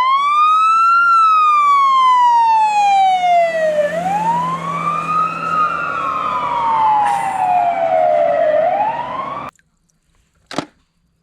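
Wailing police-style siren: the pitch sweeps up quickly and falls slowly, three times, then cuts off suddenly. A single sharp click follows about a second later.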